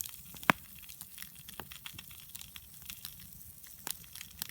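Wood campfire crackling under a grill, with irregular sharp pops; the loudest is a single crack about half a second in.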